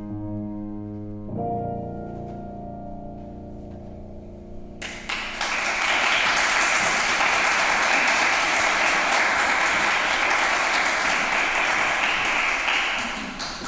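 Grand piano playing the closing chords of a song accompaniment, the last chord left to ring. About five seconds in, an audience breaks into applause that carries on for about eight seconds and fades near the end.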